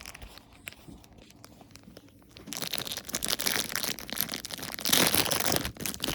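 Plastic packaging crinkling and tearing as squishy toys are opened by hand: a few faint crackles at first, then steady crinkling and ripping from about two and a half seconds in, loudest near the end.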